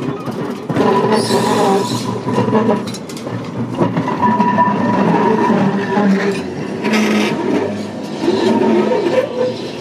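Heritage electric trams running on rails: a continuous rumble of steel wheels on the track with a steady whine, and two brief hisses, about a second in and again around seven seconds.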